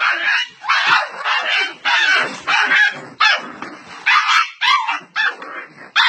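Dog yelping and whining in a rapid run of short cries, about two or three a second.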